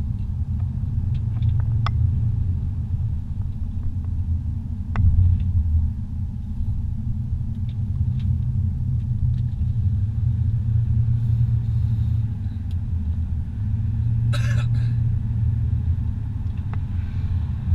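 Car driving on a paved highway, heard from inside the cabin: a steady low rumble, with a few faint clicks and a short rattle about fourteen seconds in.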